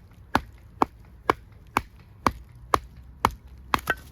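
Batoning: a baton striking the spine of a knife to drive it through a green log, sharp knocks about two a second, with the last two coming close together near the end.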